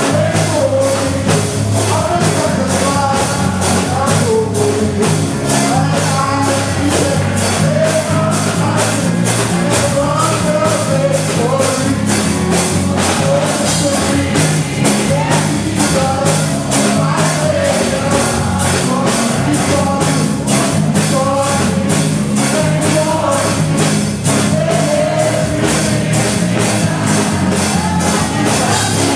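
Live gospel praise-and-worship music: singing over a band with a steady drum beat of about two beats a second.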